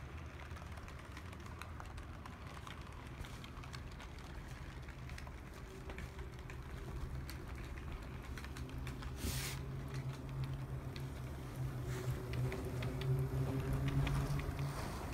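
Brass HO-scale model steam locomotive running on the track: a rapid light clicking of wheels and mechanism on the rails, with a low motor hum that comes in partway through and grows louder near the end as the locomotive passes close. A brief rushing noise about nine seconds in.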